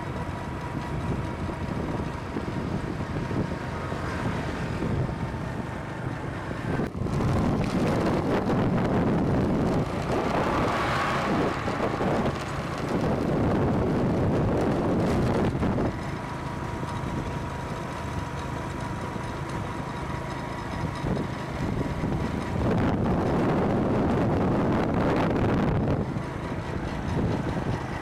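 Vehicle driving along a road, with wind rushing over the microphone and road noise that swells and eases several times, and a faint steady whine underneath.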